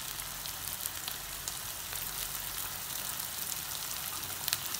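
Onion-and-spice masala sizzling steadily in hot oil in a kadai, with scattered faint crackles.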